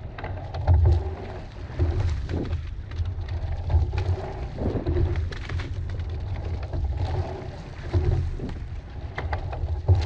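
Coxed four rowing shell under way: wind rumbling on the boat-mounted camera microphone, swelling and easing with the rowing stroke, with sharp clicks and knocks from the oars and rigging and a wash of water along the hull.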